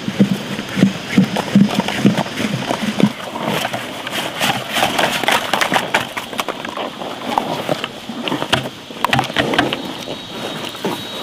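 Bamboo shoots and husks tumbling out of a plastic bucket onto the grass with soft knocks, then a water buffalo crunching and chewing the fresh bamboo shoots and husks, a run of irregular sharp crackles as it bites.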